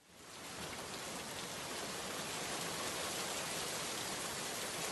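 Steady, even rain, fading in over the first half second.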